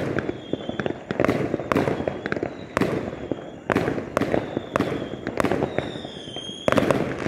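Aerial fireworks bursting overhead: a string of sharp bangs at irregular intervals with crackling between them, and a short whistle near the end.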